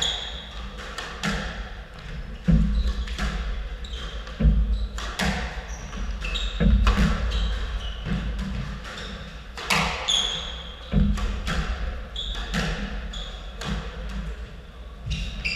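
Squash rally: the ball smacking off rackets and the court walls every second or two, with running footsteps and short squeaks of court shoes on the wooden floor.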